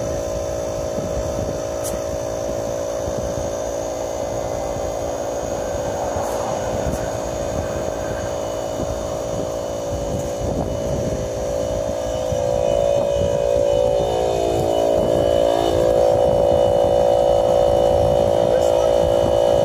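DeWalt 2.5-gallon battery-powered air compressor running with a steady hum while inflating a pickup truck tyre. It grows a little louder past the middle, with a brief dip and rise in pitch.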